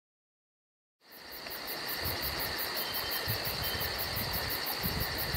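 Insects chirping in a summer field: a steady high trill with a very high pulsing chirp about five times a second, fading in after about a second of silence, with irregular low rumbles underneath.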